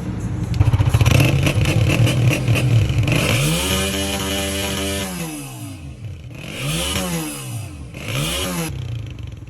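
Honda CG125 motorcycle engine running with a fast, irregular crackle for about the first three seconds. It is then revved up and let back down, and blipped twice more near the end.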